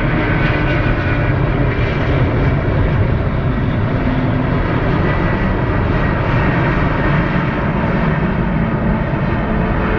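Boeing 777-300ER airliner on final approach, its twin GE90 jet engines giving a steady loud rumble with faint whining tones above it.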